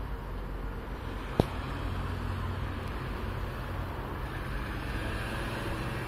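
Steady outdoor background rumble, traffic-like, with one sharp click about a second and a half in; no bell is ringing yet.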